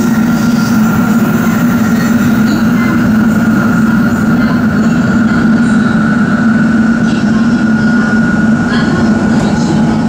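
Nozomi Shinkansen bullet train running, heard from inside the car: a loud, steady rumble of the moving train with a constant low hum and a thin, steady high tone over it.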